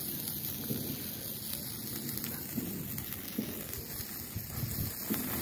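A handheld firework spraying sparks: a steady rushing hiss with faint ticks and no loud bangs.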